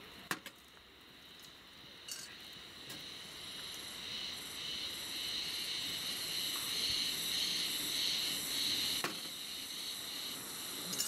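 A steady high-pitched buzzing drone that grows louder a few seconds in, with a sharp click near the start and another about nine seconds in, as seasoning is shaken over raw chicken wings and they are pressed into a cast-iron Dutch oven.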